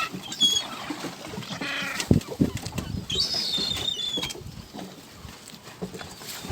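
Gulls calling: several short high cries, some falling in pitch, with a longer cry about three seconds in, among scattered low thuds.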